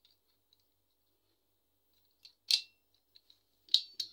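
Metal (iron) motorcycle phone holder being handled, its parts clicking and clacking: a few faint ticks, then one loud sharp clack about two and a half seconds in and two more near the end.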